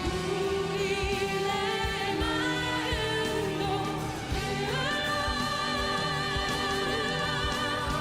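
A singer holding long notes with vibrato over a backing track with a steady drum beat, the voice stepping up to a higher held note about four and a half seconds in.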